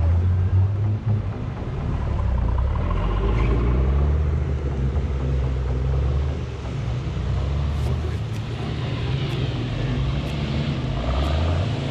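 Off-road 4x4 vehicle's engine running at low revs, its pitch rising and falling as the throttle changes.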